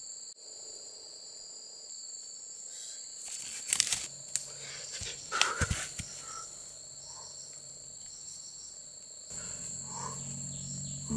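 Steady high-pitched chirring of insects. A few sharp rustles and knocks break in about three and a half and five and a half seconds in.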